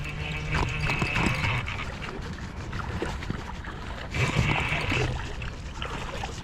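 Water splashing in irregular bursts as a hooked steelhead is brought in through shallow creek water, over the creek running in the background.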